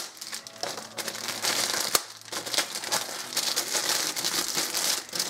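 Clear plastic bags crinkling and rustling as grey plastic model-kit sprues are handled and pulled out of them, with a sharp click about two seconds in.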